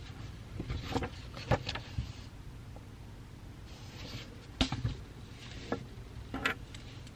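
Pencil writing on paper in short scratchy strokes, with several light taps and knocks on a desk, over a steady low room hum.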